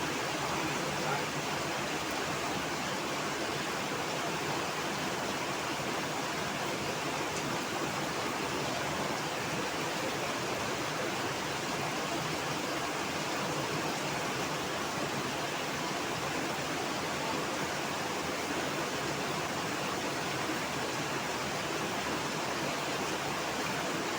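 Heavy rain falling, a dense, steady hiss with no breaks.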